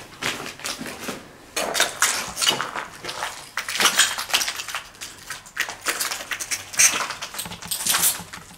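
Footsteps crunching over rubble and broken plaster on a debris-strewn floor, with irregular crackling and clinking as the debris shifts underfoot.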